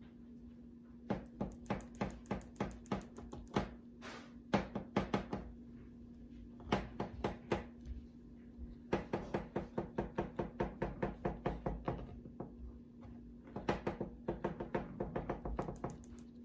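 A knife cutting a cake out around a stencil makes runs of quick, light knocks, about four a second, as the blade is worked up and down against the board underneath. There are five or so runs with short pauses between them.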